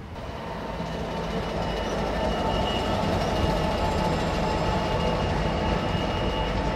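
Class 66 diesel locomotive's two-stroke V12 engine running under power as it passes close by. It grows louder over the first couple of seconds, then holds steady, with a faint steady whine over the rumble.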